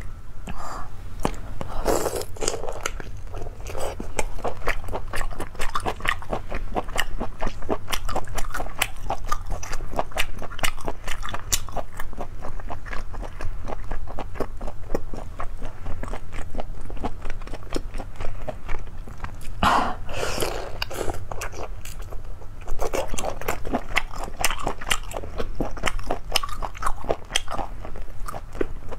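Close-miked chewing and biting of sea snail (conch) meat: many small crisp crunches and clicks in quick, irregular succession, denser about two seconds in and again about two-thirds of the way through.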